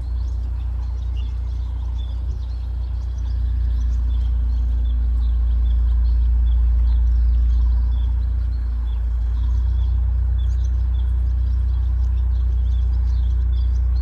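Wild forest birds chirping, many short high calls scattered throughout, over a heavy, steady low rumble that is the loudest sound.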